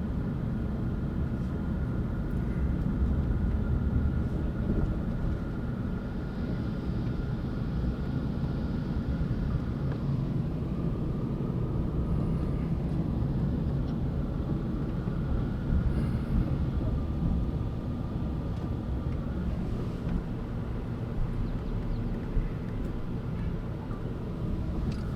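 Steady engine and road rumble of a moving vehicle, with a faint steady whine riding over it.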